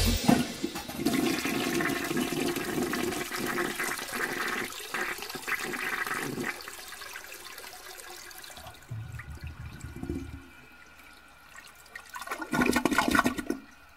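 Water rushing and gurgling, fading over about six seconds, then a few smaller gurgles and a short louder burst near the end.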